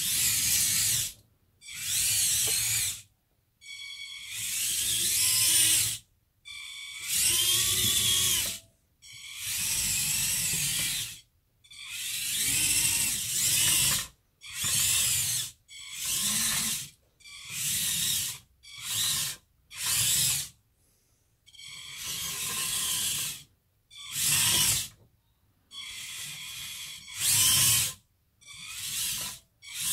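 Small electric drive motors and plastic gearboxes of a 1/16 Bruder CAT compact loader converted to radio control, whining in about fifteen short stop-start bursts of half a second to two seconds as it is driven and turned.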